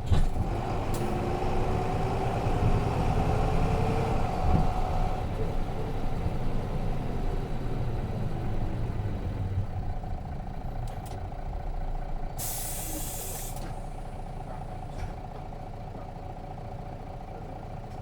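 Nissan Diesel RM bus's FE6 inline-six diesel engine and drivetrain running, with a faint whine for the first few seconds, then quieting as the bus slows. About twelve seconds in, a sharp hiss of air lasts about a second, typical of the air brakes, and the engine then idles steadily.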